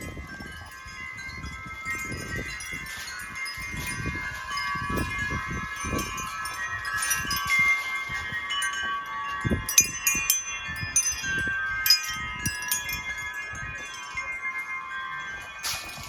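Wind chimes ringing in the wind: many overlapping notes struck at irregular moments, the sharpest strikes about ten and twelve seconds in, with gusts of wind rumbling on the microphone underneath.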